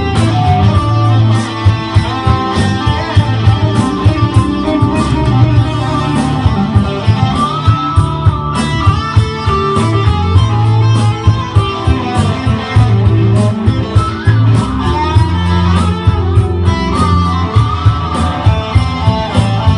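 Fender electric guitar played through a Headrush multi-effects pedalboard: melodic lead lines over a backing with a low bass line and a regular beat.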